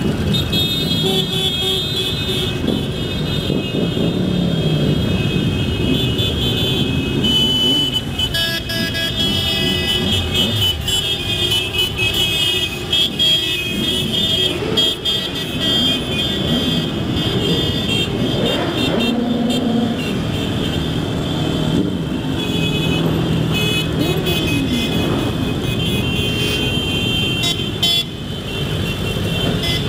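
A long column of motorcycles rides past, many engines running and revving with rising and falling pitch, and horns sounding through the din.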